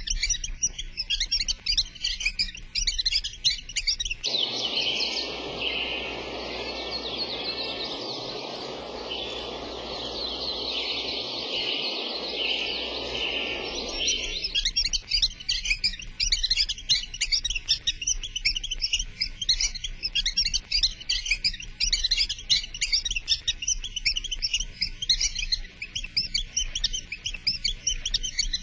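Many small songbirds chirping and twittering in quick, dense succession. From about four seconds in until about fourteen seconds in, a steady rushing noise runs underneath the birdsong.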